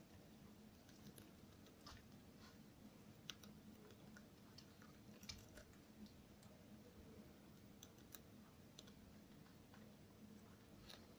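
Faint, irregular crisp clicks of a guinea pig chewing a romaine lettuce leaf, over a low steady hum.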